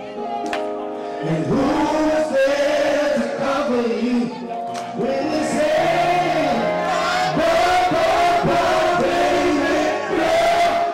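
Live R&B soul singing by male voices over electric keyboard accompaniment, the melody bending and held on long notes.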